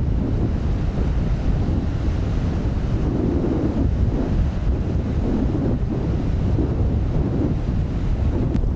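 Strong wind buffeting the microphone, a heavy steady rumble with slow surges, over the wash of rough sea.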